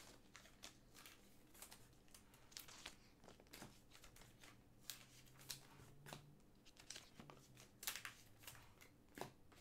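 Faint crinkling and light clicks of Panini Prizm trading cards and clear plastic card sleeves being handled, with a few sharper ticks near the end.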